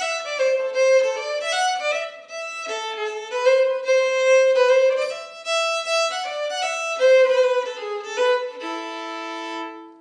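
Solo violin playing a melody of quick bowed notes, ending on a long held low note that fades away.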